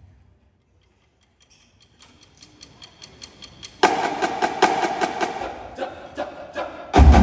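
A marching drumline's playing rings out and dies away into a brief pause. Faint regular ticking follows, then quieter rhythmic drumming starts suddenly about four seconds in, and the full drumline comes in loudly near the end.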